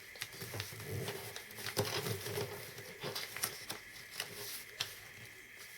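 A sheet of paper being folded and creased by hand: irregular rustling and small crinkling clicks, busiest in the first few seconds and thinning out toward the end.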